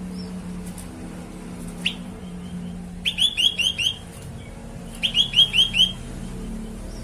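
Grey-bellied bulbul (cucak kelabu) calling: a single short note about two seconds in, then two quick runs of five or six bright, evenly repeated notes, about three and five seconds in. A low steady hum runs underneath.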